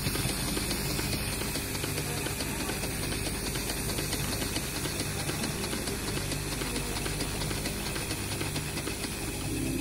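Working model steam engines running together: a steady hiss with fast mechanical ticking from their moving parts.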